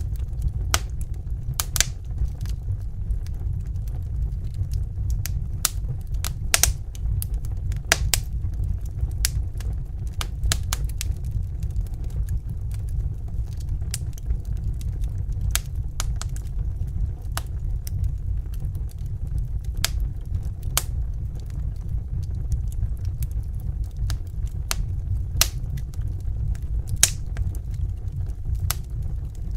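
Wood fire crackling in a fireplace: irregular sharp pops and snaps, a few a second, over a steady low rumble of the burning fire.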